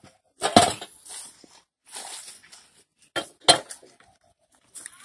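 Metal clanks from a hand balance scale, its steel pan and iron weights knocking together as they are handled. There are a few sharp clanks, the loudest about half a second in and again around three and a half seconds in, with a faint rustle between them.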